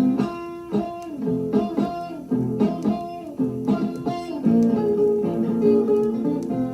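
Blues guitar playing: single picked notes that ring and fade, settling into a steady repeating riff about halfway through.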